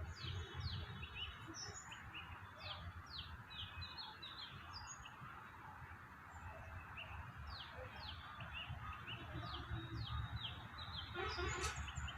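Small birds chirping: many quick, repeated downward-slurred chirps, over a steady low rumble. A brief rustling burst comes near the end.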